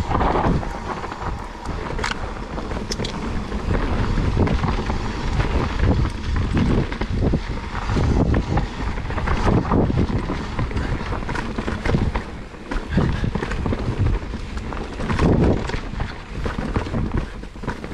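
Mountain bike descending a dirt singletrack: wind buffeting the camera microphone over a steady rumble of tyres on dirt, with frequent knocks and rattles as the bike runs over roots and rocks.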